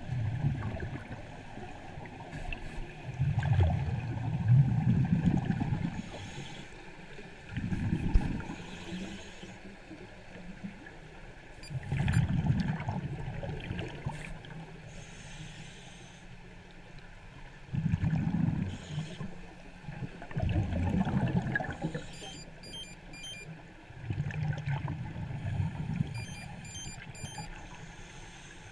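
A scuba diver's exhaled bubbles heard underwater: deep bubbling bursts a few seconds apart, about six in all, in the rhythm of breathing.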